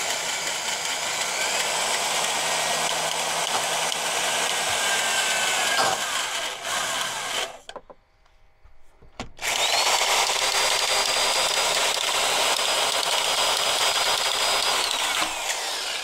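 Cordless drill driving the long mounting screws up into a rooftop RV air conditioner's bracket. It runs in two long stretches with a pause of about two seconds about halfway, and the motor's pitch falls as each run stops.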